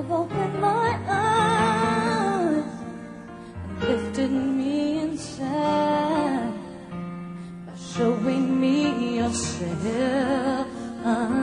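A woman singing a slow ballad live, held phrases with wide vibrato and short breaks between them, over soft sustained accompaniment.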